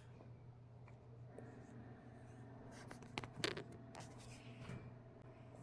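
Quiet room with a steady low hum, and a few faint rustles and soft clicks about three seconds in.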